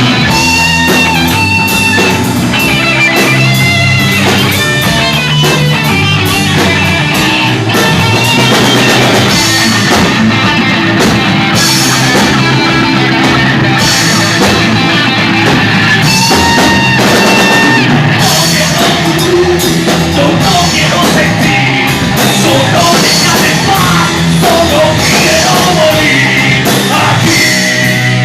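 A rock band playing live, with electric guitars over a drum kit.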